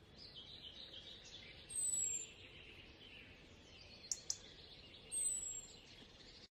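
Faint outdoor ambience of birds chirping, with a clear high, down-sliding call twice, about two and five seconds in, and two short clicks just after four seconds.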